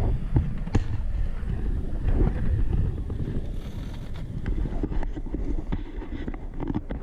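Wind buffeting a hand-held action camera's microphone over the steady rumble of roller-ski wheels rolling on asphalt, with occasional sharp knocks.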